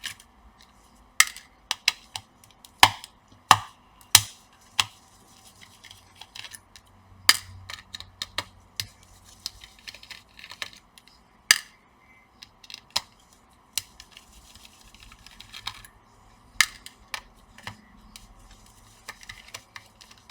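Sharp, irregular clicks and small metallic taps from a screwdriver turning out and lifting the small screws that hold a laptop's cooler assembly.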